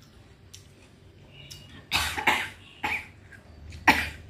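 A woman coughing several times in short, harsh bursts starting about two seconds in, with a last one near the end. The coughing follows a bite of rose apple dipped in chili salt that she finds too spicy and pungent, rising up into her nose.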